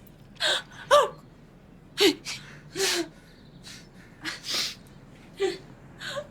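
A person gasping: a quick series of short, ragged breaths, some with a brief voiced catch.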